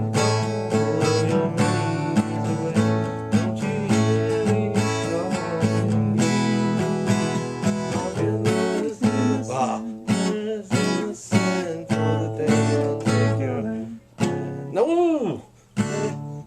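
Acoustic guitar being strummed and picked in steady chords, breaking into a few short pauses near the end.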